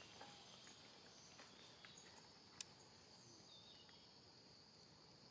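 Faint, steady high-pitched insect chirring from the forest, with a single sharp click about halfway through.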